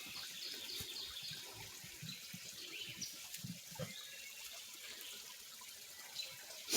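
Creek water trickling steadily, with low rustling and handling thumps through it and a sharp knock right at the end.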